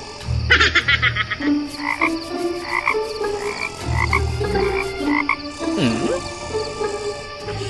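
Frog-like croaking: short calls repeating about twice a second, with a rattling burst near the start and a low pulsing beat underneath.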